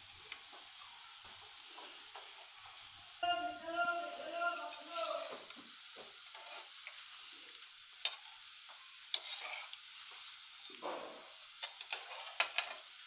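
Cauliflower pakoras deep-frying in hot oil with a steady sizzle. Now and then a metal slotted spoon clicks against the pan as the fritters are turned.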